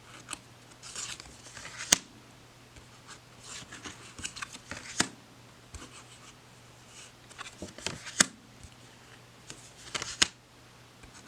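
Tarot cards being handled one at a time: soft sliding of cards against each other, with four sharp clicks as cards are set down or snapped, about every two to three seconds.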